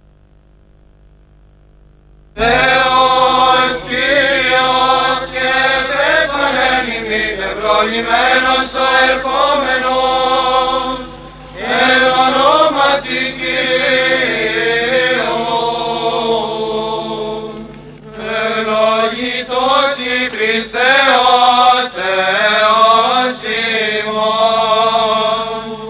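Faint steady hum, then about two seconds in a liturgical chant sung by voices begins, in phrases with brief pauses between them; the old recording sounds dull, with no high treble.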